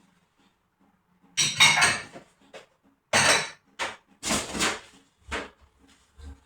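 Household things being handled during cleaning: a series of short clattering, scraping bursts, the loudest about a second and a half in.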